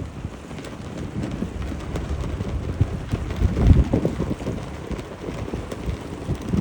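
Strong gusty wind buffeting the microphone as a low rumble, with the strongest gust about halfway through.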